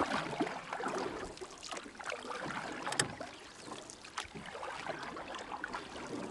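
Water splashing and dripping as double-bladed paddles dip into the water beside a tandem kayak, with scattered small clicks and one sharp knock about three seconds in.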